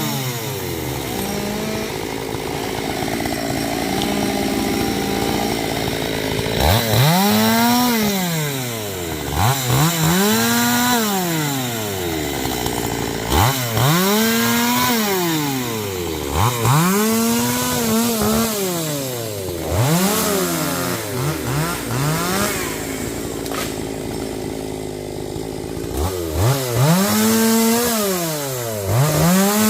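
Two-stroke chainsaw revved up and down over and over, its pitch rising and falling in quick swells, with two stretches of steadier, lower running between them.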